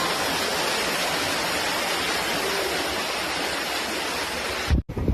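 Floodwater gushing through a doorway into an apartment hallway, a steady rushing of water. It cuts off suddenly near the end, and gusts of wind on the microphone follow.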